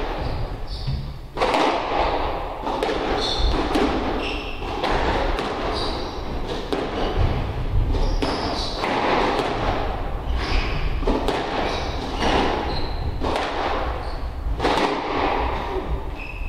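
Squash rally: the ball knocked by rackets and off the court walls about once a second, with short high squeaks of players' shoes on the wooden floor between the hits.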